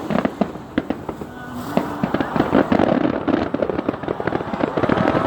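Fireworks finale barrage: many shell bursts and crackles in quick succession, growing denser and louder after about two seconds.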